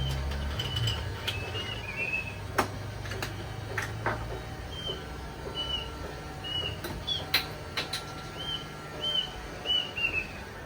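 A bird calling with short, arched chirps repeated about once a second, over a low hum. A few sharp clicks or knocks sound in between, the loudest one a little past the middle.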